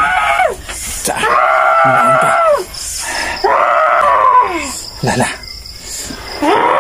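A woman's long, high wailing cries, each held about a second and a half and falling in pitch as it ends, with short gaps between them: a cry dying away just after the start, two more in the middle, and another starting near the end.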